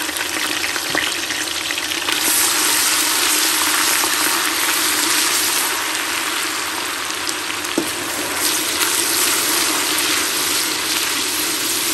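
Ginger-garlic paste sizzling in hot oil with fried onions in a pressure cooker pot, stirred with a silicone spatula. The steady sizzle grows louder about two seconds in.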